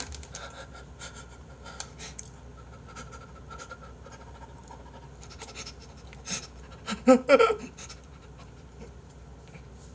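A person eating a mouthful of gimbap, with breathy nose breathing and small clicks. About seven seconds in comes a short, loud vocal outburst, muffled through the full mouth.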